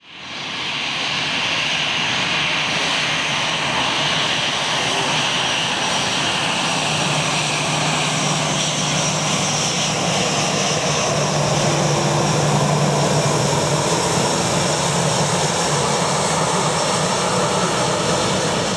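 Boeing 757-200 jet airliner on approach to land, its Rolls-Royce RB211 turbofans giving a steady broad rush with a high whine, swelling slightly in the middle.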